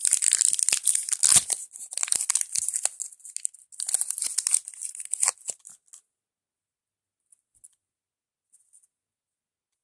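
Crinkly plastic toy packaging being torn open and crumpled by hand, a dense crackling for about six seconds, then only a few faint ticks.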